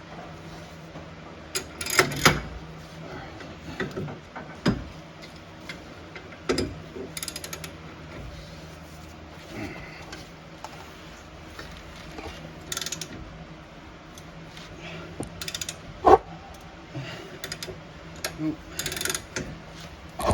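Socket ratchet clicking and metal tools clanking while working a brake caliper bolt loose, in irregular short spells with sharp knocks about 2 and 16 seconds in.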